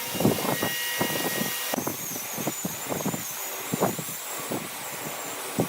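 Wood lathe running while a turning tool cuts a spinning glued-up wood blank: a steady hiss with irregular rapid scraping and tapping strikes, and a faint high wavering whine that comes in about two seconds in.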